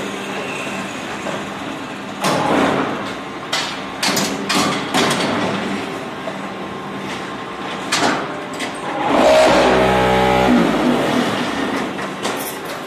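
Fly ash brick-making machine with stacker running: a steady motor hum under scattered knocks and clatter as pallets of blocks are handled. About nine seconds in, a louder motor run drops in pitch and stops.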